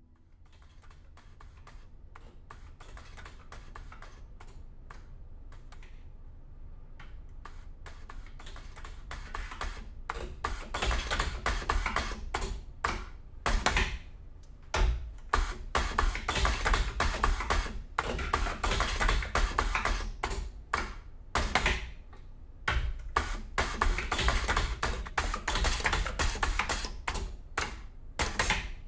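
NEWECO ZTA-100 aluminium tube closing machine at work, a dense run of rapid, typewriter-like clicking and clattering as it folds and crimps the tube ends with a double-fold closure. Faint at first, it grows louder about ten seconds in and comes in stretches broken by short pauses.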